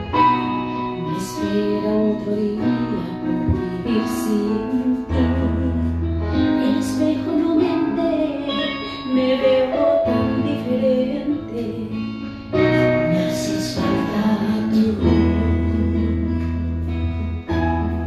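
A woman singing a Spanish-language romantic ballad into a microphone over a backing track with guitar and a steady bass line.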